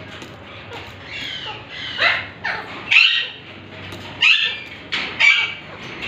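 Alexandrine parakeets giving harsh squawking calls, each sweeping down in pitch. A few softer calls come first, then four loud ones about a second apart from two seconds in.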